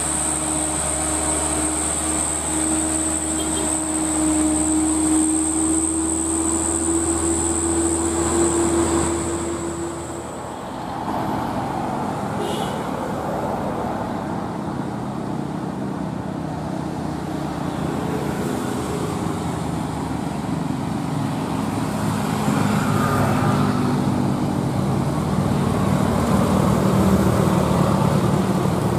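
Diesel engines of loaded Mitsubishi Fuso Canter dump trucks labouring uphill. First a passing truck runs with a steady high whine. After a brief dip about ten seconds in, another truck approaches among motorcycles, its engine growing louder toward the end.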